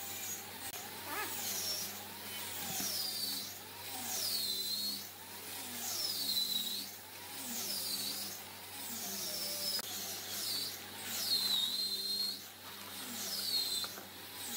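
Wood lathe running with a steady motor hum while a turning tool cuts the spinning blank. Each pass brings a high squeal that falls in pitch and then levels off, about once every second and a half, and the loudness swells and sags with the passes.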